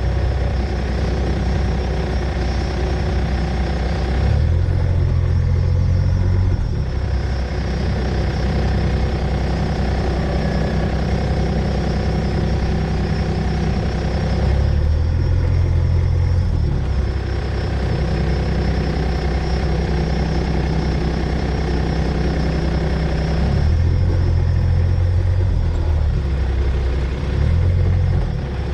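A vehicle engine runs slowly throughout, its low hum stepping up and down in pitch every few seconds as the throttle is eased on and off while it follows cattle at walking pace.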